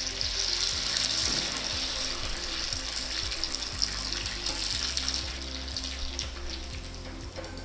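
Rice-flour elai vadam sizzling and crackling as it deep-fries in fully heated oil, puffing up in the pan. The hiss is loudest over the first few seconds and slowly eases off.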